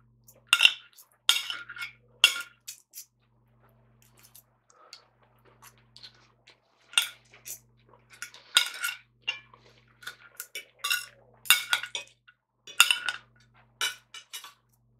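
Metal knife and fork clinking and scraping against a plate while cutting food, in irregular clusters of sharp clinks with a lull of a few seconds about a third of the way in.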